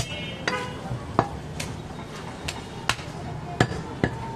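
Heavy butcher's cleaver chopping goat meat on a wooden block: about seven sharp chops at an uneven pace.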